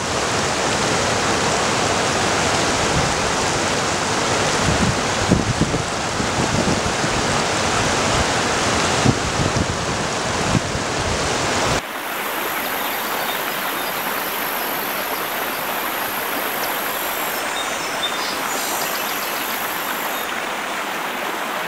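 Rushing water of Takakkaw Falls and the glacial river below it: a loud, even roar with a few low bumps. About twelve seconds in the sound changes to a thinner, steadier hiss with less low rumble.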